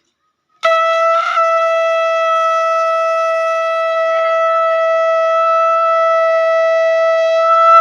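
Conch shell (shankh) blown by mouth in one long steady note, starting about half a second in and held for about seven seconds, swelling slightly just before it stops; it takes a strong breath and hard blowing to sound.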